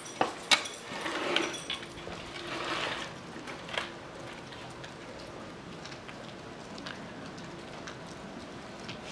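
Steady hiss of wet, heavy snow falling. In the first four seconds a handful of sharp knocks and rustling scrapes stand out over it, the loudest two within the first second.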